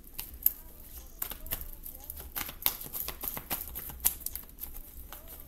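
A deck of tarot cards being shuffled by hand: a quick, irregular run of light clicks and flicks as the cards slide and tap against each other.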